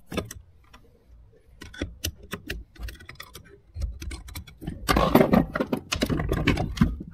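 Metal carburettor parts from a Trabant clicking and clattering as they are handled: scattered single clicks at first, then a dense, louder run of clinks and rattling from about five seconds in.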